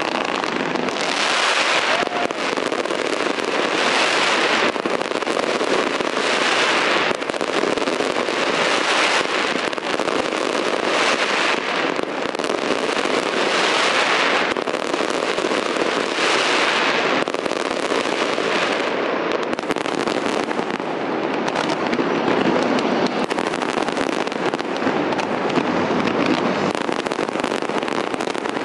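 Fireworks display: a dense, continuous crackling and popping from fountain fireworks and bursting aerial shells, swelling louder every couple of seconds, with no single boom standing out.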